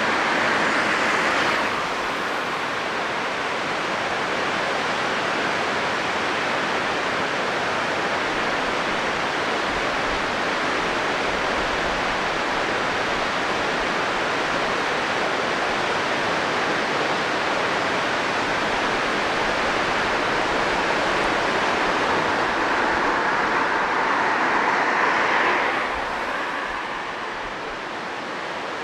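Steady rushing noise, swelling a little before dropping back about four-fifths of the way through.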